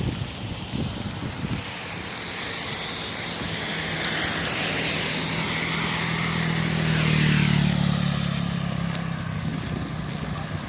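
A vehicle passes through shallow floodwater on the road. Its engine hum and the hiss of tyres through water build from about three seconds in, are loudest around seven seconds, then fade away.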